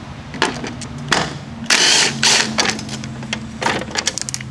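Handling noise: scattered clicks and knocks with a few short rustling bursts near the middle, over a low steady hum that comes in about a second in.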